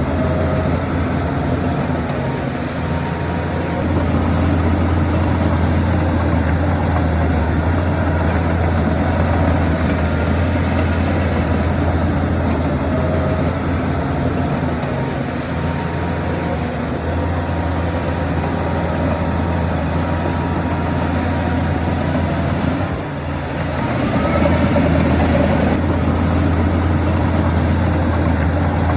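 Shantui bulldozer's heavy diesel engine running steadily with a deep low drone. It dips briefly about three-quarters of the way through, then picks up again slightly louder.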